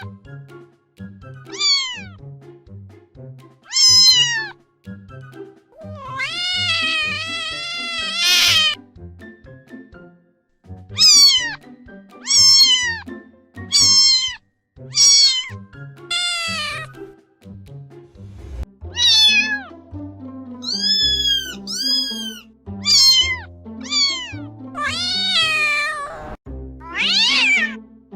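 Cats and kittens meowing one after another, a dozen or more separate meows, most of them falling in pitch, with a few longer drawn-out ones, over background music with a steady beat.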